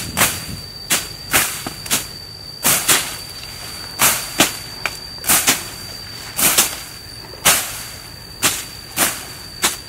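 Machetes chopping through grass and weeds in quick, uneven strokes, about one to two sharp swishing hits a second, some coming in quick pairs.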